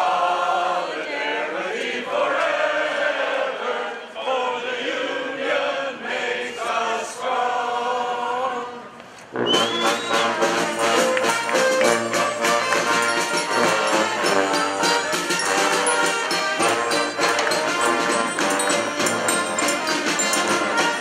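A group of voices singing together. About nine seconds in, this cuts abruptly to a street brass band playing loudly, with horns over percussion.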